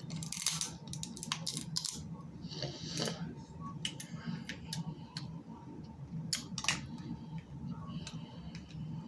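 Snow crab leg shells cracking and snapping as they are broken apart by hand, a string of sharp irregular clicks, over a low steady hum.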